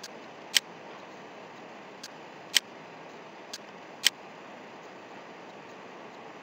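Computer mouse clicks: three pairs, each a faint click followed about half a second later by a sharp one, roughly every one and a half seconds, over a steady low hiss.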